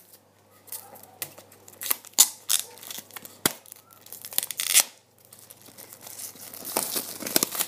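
Clear plastic shrink wrap being ripped and peeled off a product box: sharp crackles and tearing, a short pause about five seconds in, then denser crinkling near the end.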